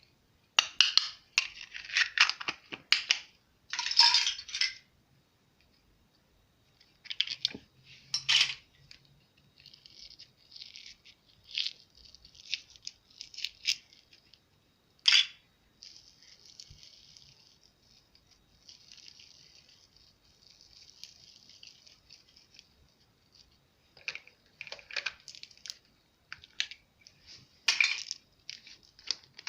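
Slime being kneaded, pressed and stretched by hand, making sticky crackling and popping in repeated bursts with short quiet pauses between them.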